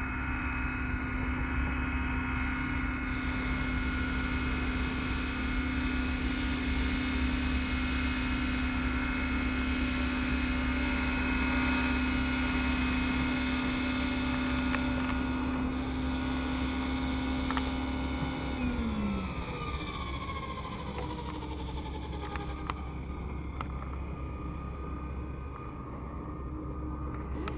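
Scale radio-controlled Bell 429 model helicopter hovering with a steady whine. About two-thirds of the way through, the whine falls in pitch as the rotors spool down after the model has set down on the grass.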